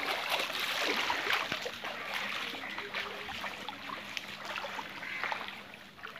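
Shallow floodwater splashing and sloshing as a person wades through it on foot, busiest and loudest in the first couple of seconds, then easing off.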